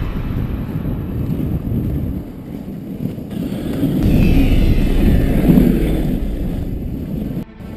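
Dog sled gliding over snow: a steady rushing noise from the runners mixed with wind buffeting the microphone. It grows louder in the middle and cuts out briefly near the end.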